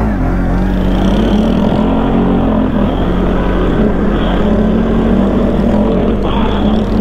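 A CFMoto quad bike's engine running steadily while under way, with a constant drone whose pitch wavers slightly, over a steady rush of noise.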